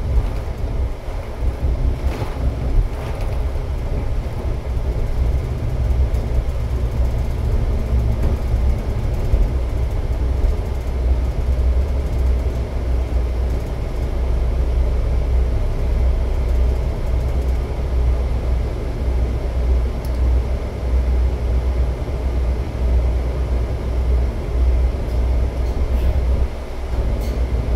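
Steady low rumble of a moving vehicle heard from inside the cabin: engine and tyre noise on the road.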